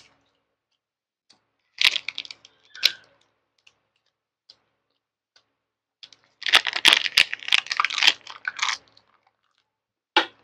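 Close-miked mouth sounds of eating a grilled snakehead fish and vermicelli roll: a few short wet clicks early on, then a dense run of crackly, wet bites and chewing about six seconds in, with a couple of sharp clicks near the end.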